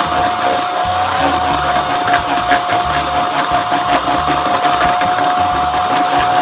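Electric mixer running at a steady speed with a constant whine, beating flour into banana muffin batter.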